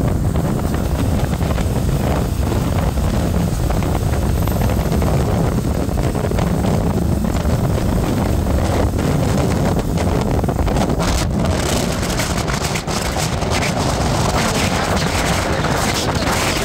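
Steady road and wind noise from a moving vehicle, with wind buffeting the microphone.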